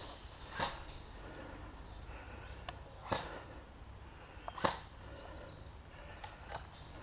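Three sharp bangs from a gun being test-fired some way off, the first about half a second in, then two more about three and four and a half seconds in, each with a short echo.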